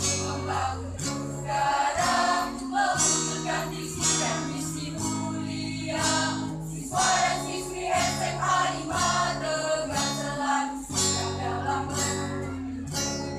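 Mixed choir of young voices singing in harmony, with held chords, to a strummed acoustic guitar.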